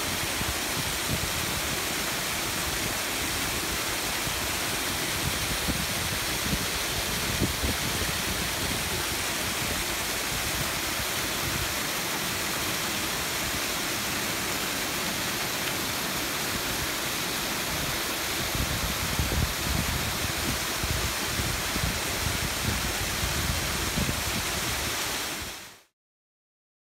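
Water pouring over the top of a sluice gate into a concrete channel, a steady rushing splash. It cuts off suddenly near the end.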